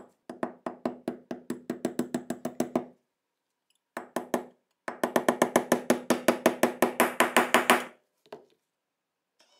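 Brass-faced hammer tapping a pin punch in quick, light strokes, about seven a second, driving a pin into the steel frame of a Colt Model 1903 Pocket Hammer pistol, each tap ringing with a metallic tone. Two runs of tapping with a short pause between; the second is louder and sharper toward its end, and it stops as the pin seats flush.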